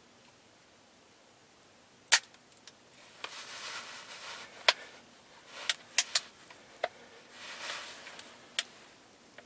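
A series of sharp metallic clicks from handling a flintlock rifle's lock, the loudest about two seconds in, with soft rustling in between.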